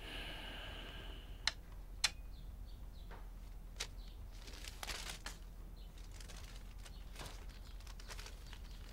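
Paper rustling as pages are handled and a sheet is unfolded, with a few sharp light clicks and soft swishes, over a faint steady low hum.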